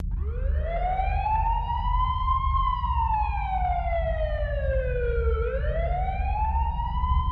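A siren-like wail that rises slowly, sinks, then rises again, over a steady low rumble, opening the soundtrack before the beat comes in.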